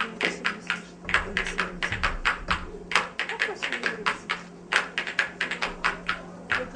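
Scattered, uneven hand claps from a few people, several a second, over a steady low electrical hum from the sound system.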